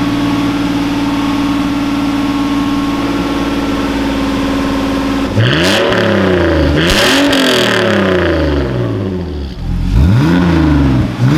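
BMW E46 straight-six running through a cat-back exhaust with a Valvetronic Designs valved muffler. It is held steady at about 2000 rpm with the valve closed, then about five seconds in the valve opens and the exhaust gets louder as the engine is revved up and down several times, with another rev near the end.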